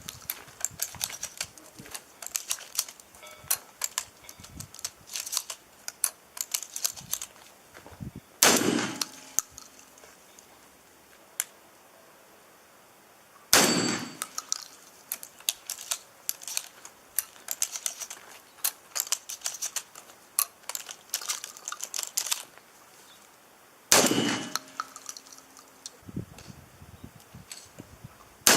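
Shotgun firing at steel targets: three loud shots several seconds apart and a fourth at the very end, each with a ringing clang of struck steel. Many fainter sharp cracks and pings run between them.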